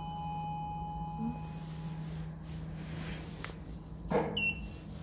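KONE elevator's landing chime, two bell-like tones ringing on and fading out over the first two seconds, over a steady low hum. About four seconds in comes a click as the call button is pressed, followed by a short high electronic beep.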